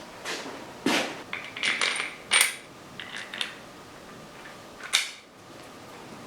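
Metal tools and parts clinking and knocking against each other in a run of sharp strikes with a brief ring, loudest about two and a half seconds in, with a last clank about five seconds in.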